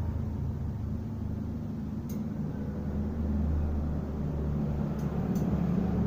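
Steady low rumble of a motorcycle engine running, with a few faint light clicks of iron rods being handled, once about two seconds in and twice near the five-second mark.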